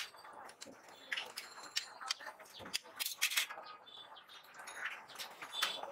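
Irregular metal clinks and scrapes of a spatula and slotted spoon against a wide frying pan, over a faint sizzle of kheta puri frying in oil.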